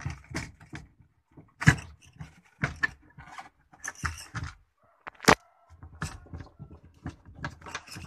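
Irregular clicks, knocks and scraping of a car's plastic fuel pump module being turned and seated into the fuel tank opening by hand. The two sharpest knocks come about one and a half and five seconds in.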